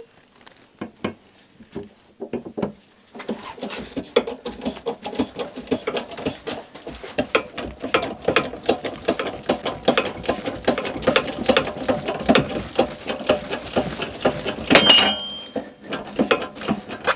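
Bearing race being pressed onto a wheel hub in a 10-tonne hydraulic shop press, the metal creaking and clicking rapidly under load as it goes in crooked. Near the end comes a louder burst with a brief metallic ring as something gives.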